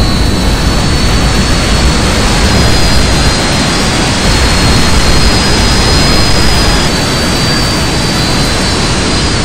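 Jet suit's arm-mounted small jet turbines running steadily at hover power: a loud even roar with a high whine held on top.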